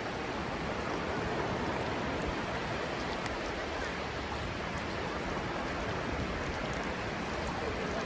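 Small waves breaking and washing steadily over a shallow sandy beach, an even rushing of surf.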